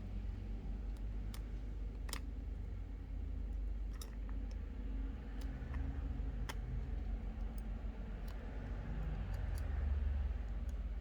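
Scattered small, sharp clicks of metal tweezers against phone parts and the screen assembly, a second or more apart, over a steady low hum.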